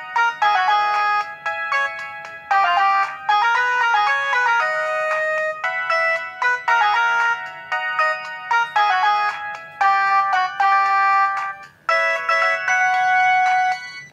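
A Samsung ringtone played on a ZTE Z222 phone: a synthesized melody of short, bright notes in repeating phrases. It ends on a held note that cuts off sharply near the end.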